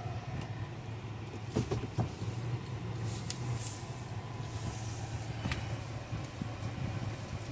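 Car driving slowly, heard from inside: a steady low hum with a few light clicks and knocks, two of them about one and a half and two seconds in.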